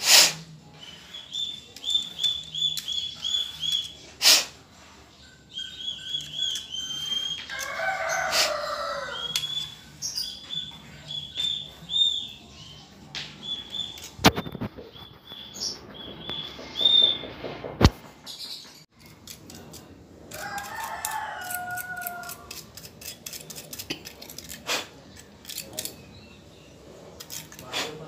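A rooster crowing twice, about 8 and 21 seconds in, over runs of short, high, repeated chirps. Scattered sharp clicks and taps come from handling the refrigerator's inverter control board and a screwdriver.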